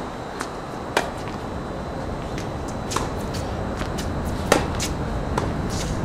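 Tennis balls struck by rackets and bouncing on a hard court during a rally: a handful of sharp pops, the loudest about four and a half seconds in, over a steady low background rumble.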